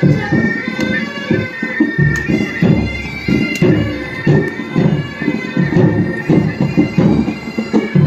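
Military pipe band playing: bagpipes sound a melody over their steady drones, with drums beating time.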